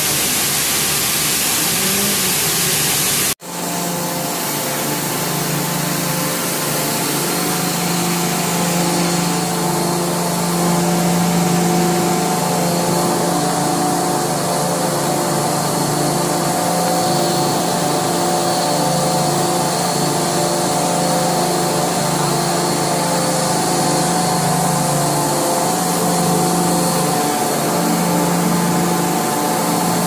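Loud, steady drone of blast furnace cast house machinery, several held tones with one that pulses on and off. It follows a sudden cut, about three seconds in, from an even rushing plant noise.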